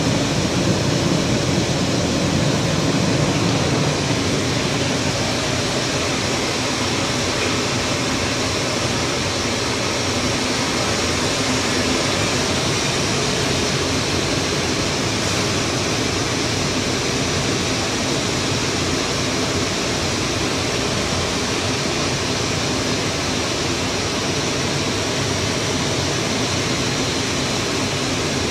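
Steady traffic and vehicle noise heard from inside a tram on a wet street, a little louder in the first few seconds while the tram is moving, then even as it stands in traffic.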